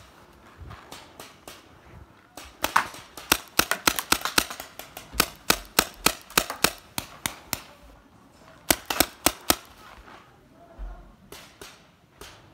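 Paintball markers firing in runs of sharp pops. The shots are scattered at first and densest from about two to eight seconds in, followed by a quick burst of about five shots and a few fainter ones near the end.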